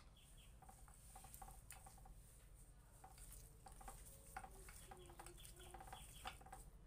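Faint squishing and rustling of a bare hand mixing marinated duck meat with potatoes, sliced onion and spices in a steel bowl, with a few small soft knocks and faint short chirps scattered through.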